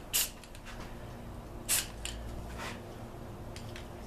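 Short hissing bursts from an aerosol spray-paint can: one quick spray just after the start and another a little under two seconds in, with fainter short hisses after it.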